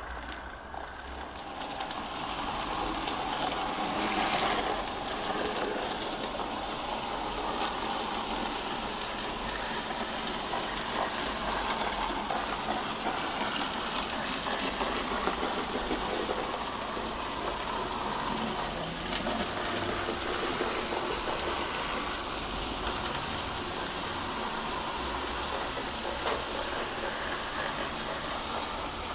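N gauge model steam tank locomotive running along the layout: the small electric motor whirring and the wheels clicking over the rail joints, with a few small sharp clicks.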